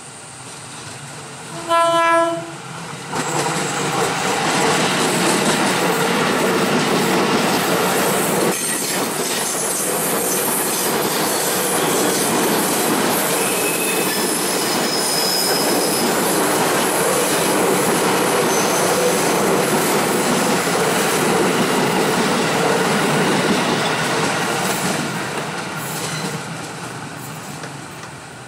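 KRL Commuter Line 205-series electric train sounding its horn in one short blast about two seconds in, then running past close by on a curve with loud wheel and rail noise and a brief high wheel squeal around the middle, fading away near the end.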